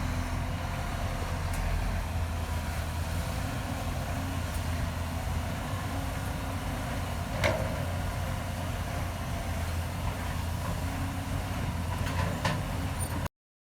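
Heavy construction-machine diesel engine running steadily, with a sharp knock about halfway through and a couple of lighter knocks near the end, before the sound stops abruptly.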